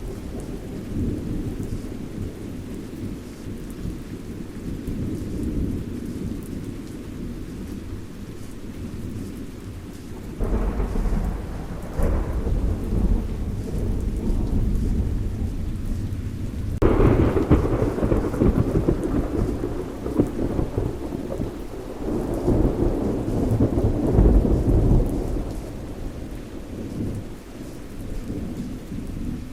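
Thunderstorm: steady rain with continuous low thunder rumbling. Louder peals break in suddenly about a third of the way in and again just past halfway, then rumble on and fade toward the end.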